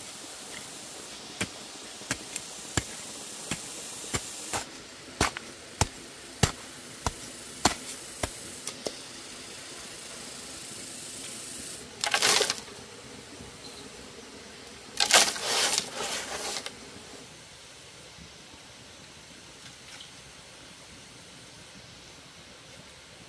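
A run of sharp knocks, roughly two a second for several seconds, over a steady hiss. Then come two longer rustling bursts, the second one the loudest.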